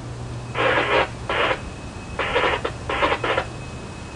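Railroad scanner radio giving four short bursts of garbled, hiss-like transmission. A faint steady high tone comes in about one and a half seconds in.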